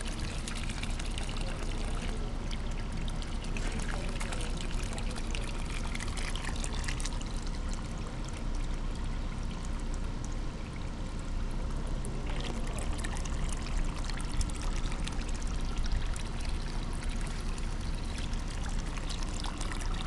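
Water running from the open end of a garden hose and splashing into a shallow puddle, a steady pour.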